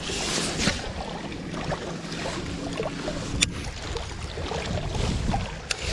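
Wind buffeting the microphone in a steady low rush, broken by a few sharp clicks.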